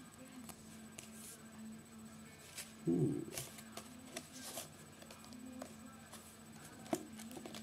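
Cardboard software box being handled and opened by hand: scattered light rustles and clicks of packaging.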